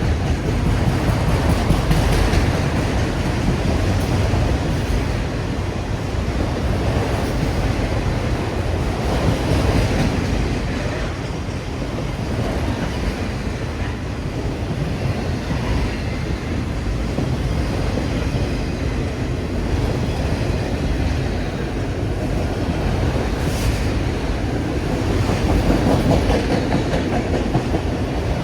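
Freight train rolling past, its cars going by on the rails in a steady, continuous rumble.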